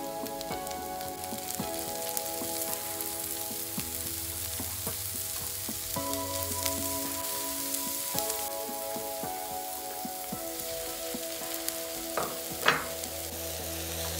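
Diced onion and red pepper sizzling in an oiled frying pan while a spatula stirs and scrapes through them, with small clicks of the spatula on the pan and one brief louder scrape near the end. Soft background music plays underneath.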